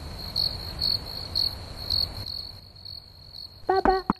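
Crickets chirping at night: a steady high-pitched trill with louder chirps about every half second, softening after about two seconds. Near the end a voice calls out.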